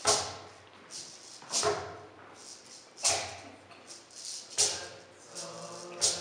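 A hand drum playing a slow, steady beat: a strong stroke about every second and a half, each ringing briefly, with lighter strokes between. Held notes join in near the end.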